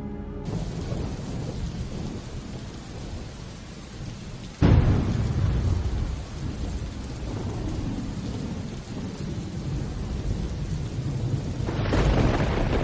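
Steady heavy rain with thunder: a sudden loud thunderclap about five seconds in that slowly rolls away, and thunder rumbling up again near the end.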